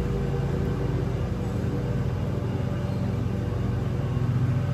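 A steady low mechanical hum of a running motor, even in level and pitch.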